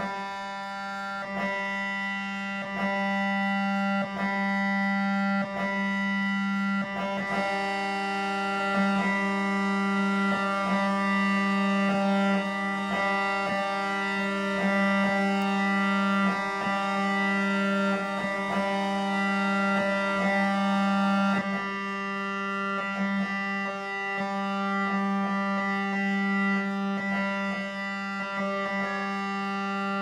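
Electronic drone music: many steady, sustained tones stacked over one strong low hum, with faint regular pulses running through it. A layer of brighter high tones comes in about seven seconds in and drops out around twenty-one seconds.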